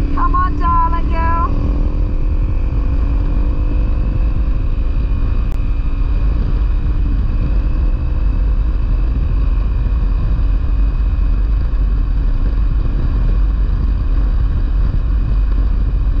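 Honda CRF250L single-cylinder four-stroke engine running while riding on a dirt road, its note rising gently over the first few seconds and then holding steady, under heavy wind rush on the microphone.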